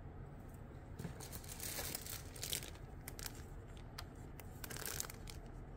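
Faint crinkling and rustling of plastic as model-kit sprues are handled, with a few light clicks, strongest from about one to five seconds in.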